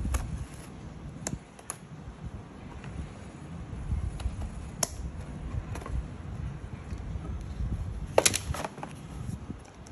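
Scissors snipping through a thin cardboard box, with scattered sharp snips and crackles over low handling rumble. About eight seconds in comes a louder quick cluster of snaps as the cut end flap comes free.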